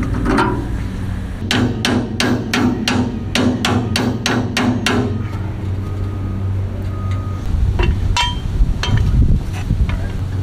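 A hammer beating on the steel hardware of an old trailer's axle to free it for removal. A quick, even run of about a dozen blows, three or four a second, is followed a few seconds later by a handful of single strikes, one of them ringing.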